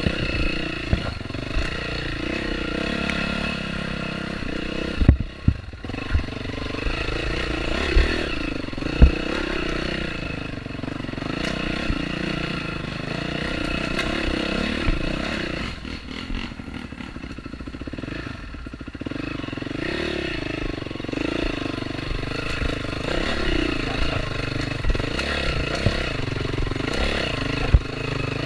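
Dirt bike engine on an off-road trail, the throttle opening and closing so the pitch rises and falls, with sharp knocks from the bike jolting over rough ground. It eases off and drops lower for a few seconds past the middle.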